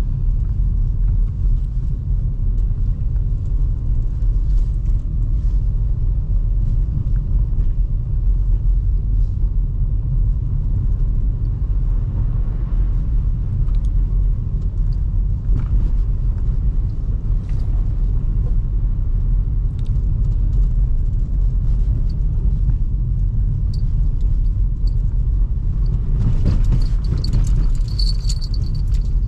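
Steady low rumble inside the cabin of a 2005 Toyota Highlander driving on snowy roads, from its 3.3 L V6 engine and tyres. Near the end the noise swells briefly and a faint high tone comes in.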